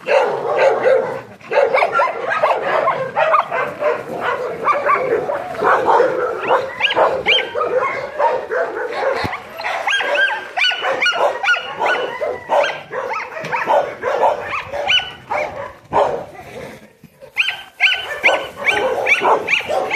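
Several dogs barking and yipping at once in a near-continuous chorus of short calls, with a brief lull about three-quarters of the way through.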